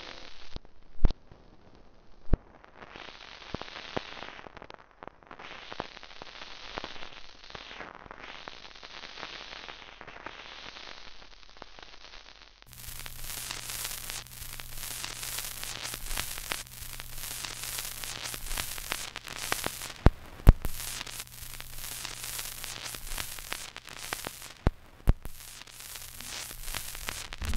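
Old 78 rpm record surface noise: a steady hiss with scattered crackle and a few sharp pops. About halfway through it turns brighter, with denser crackle and a steady low hum underneath.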